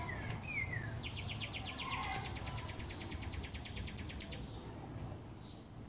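A small bird calls outdoors: a couple of short falling chirps, then a dry, even, high trill of about ten notes a second lasting about three and a half seconds.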